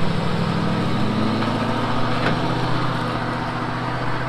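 Pickup truck engine running steadily at low revs as it pulls away towing a loaded car trailer, growing slightly fainter.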